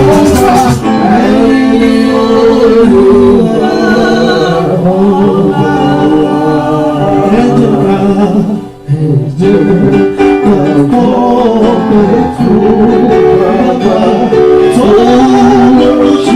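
Loud church praise music: voices singing over instrumental backing, with a brief dip in the music about halfway through.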